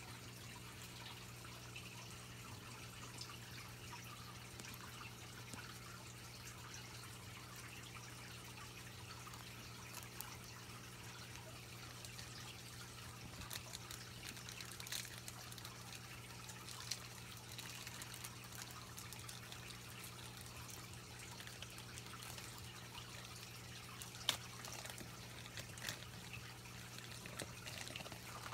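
Faint room tone: a steady low hum with a light hiss and scattered small clicks, one sharper click about three quarters of the way through.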